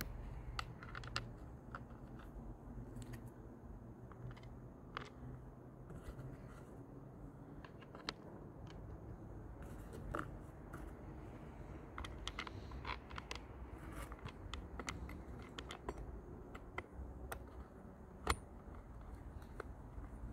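Scattered light clicks and taps of hands and a screwdriver working on a chainsaw's plastic housing, with one sharper click near the end, over a low steady rumble.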